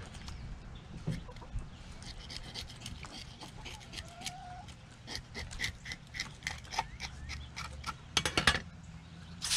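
Handheld fish scaler scraping the scales off a saugeye in short, raspy strokes, with a quick flurry of strokes near the end.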